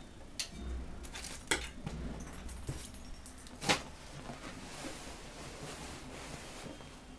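Scissors cutting through folded dress fabric: a few sharp snips of the blades, the loudest about three and a half seconds in.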